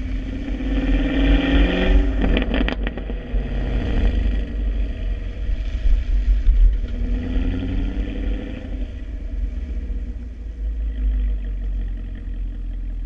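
2016 Chevrolet Camaro SS's LT1 V8 on its stock exhaust, revved up and let fall twice. A quick burst of crackles comes as the revs drop after the first rise, and the engine settles back to a steady idle near the end.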